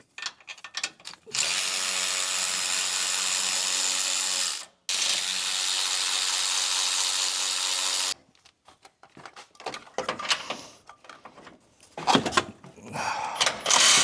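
Cordless ratchet running on a 13 mm bolt in two long steady runs with a brief pause between, followed by small clicks and knocks of the tool and bolt being handled.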